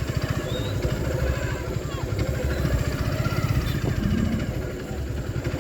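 Motorcycle engine running at low speed with a fast, even exhaust pulse, easing off briefly near the end.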